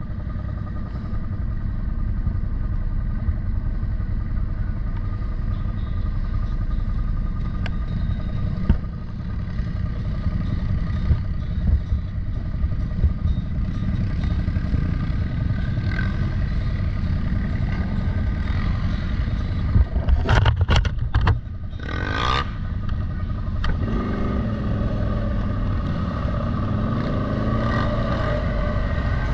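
CFMoto Terralander 800 ATV engine running under way on sand, steady for most of the time, with a cluster of sharp knocks about twenty seconds in, then the engine note rising and falling as the throttle is worked.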